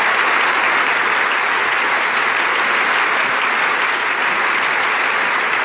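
Large crowd applauding, a steady, loud and dense clapping.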